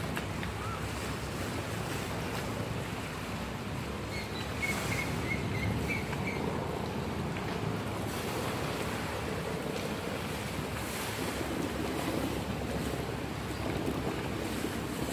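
Canal taxi boat's diesel engine running steadily as the boat passes, with its wake churning and slapping in the canal and wind on the microphone. A few faint high chirps come about five seconds in.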